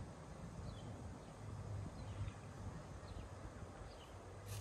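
Quiet outdoor ambience: a small bird gives faint, short, falling chirps about once a second over a low steady rumble, with a brief rustle near the end.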